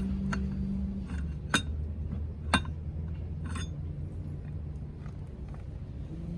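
Three sharp clinks of hard objects knocking together, about a second apart, over a steady low hum that fades about a second in and returns near the end.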